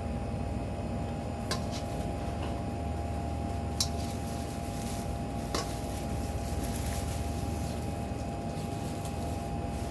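Steady kitchen hum with a faint constant tone, broken by three short sharp clicks of kitchenware being handled, about one and a half, four and five and a half seconds in.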